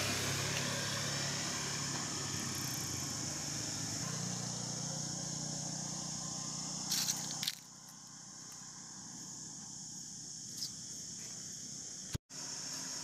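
Outdoor ambience: a motor vehicle's engine hum that stops after a few clicks about halfway through, over a steady high hiss that carries on. The sound cuts out for an instant near the end.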